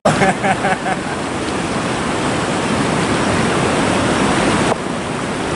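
Steady rushing of river water flowing over rocks, an even hiss without rhythm.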